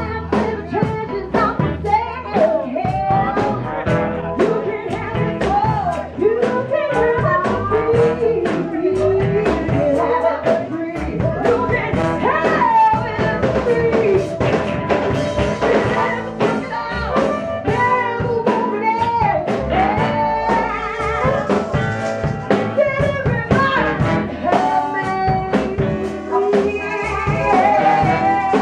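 Live band playing an upbeat blues dance number, with a steady drum-kit beat, upright bass and a sung melody line.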